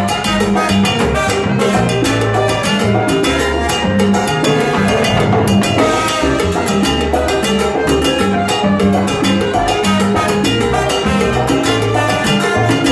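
Live salsa band playing: a rhythmic bass line, brass and dense Latin percussion in a steady groove.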